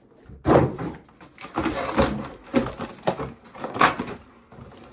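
A toy playset's box being handled and pulled open: irregular rustles, scrapes and knocks of packaging, the loudest about half a second in, then several smaller ones.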